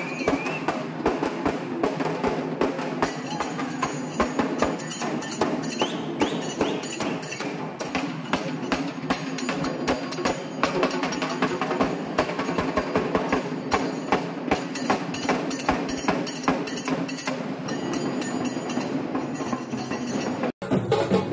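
Rapid, loud festival drumming with sharp stick strokes in a fast steady rhythm, over crowd noise. It cuts off abruptly near the end.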